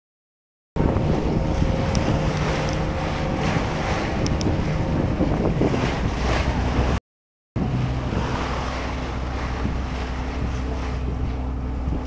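Boat engine running steadily with wind buffeting the microphone and water rushing past the hull, heard from aboard a moving boat. The sound starts a moment in and cuts out briefly about halfway through.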